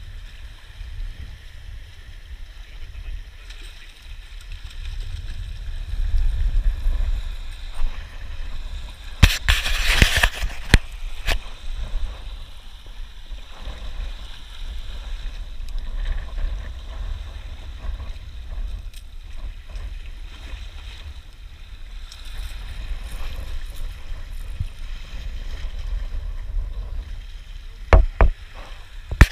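Sea waves sloshing and washing against shoreline rocks, over a steady low rumble. A loud burst of noise comes about nine seconds in and lasts a second or so, and a few sharp knocks come near the end.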